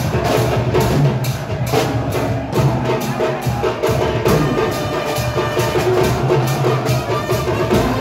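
A football supporters' group celebrating with drums beating a steady fast rhythm, about three beats a second, while the crowd chants along.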